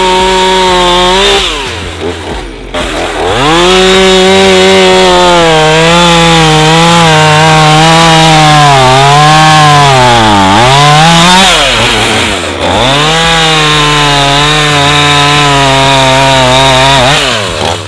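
Husqvarna two-stroke chainsaw cutting through a fallen log at full throttle. It drops back off the throttle about a second in and again briefly around twelve seconds, revving up each time. Its pitch sags and recovers as the chain bogs in the wood midway, and it falls off throttle near the end.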